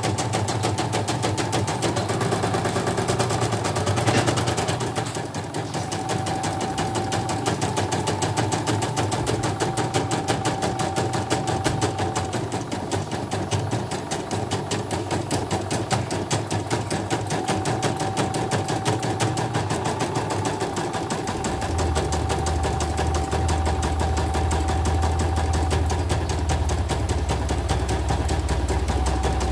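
CNY computerised embroidery machine stitching a test design after repair: a rapid, even needle clatter with a whine that comes and goes. A low hum joins about two-thirds of the way through. The stitching runs smoothly, which the repairer puts down to the new presser foot.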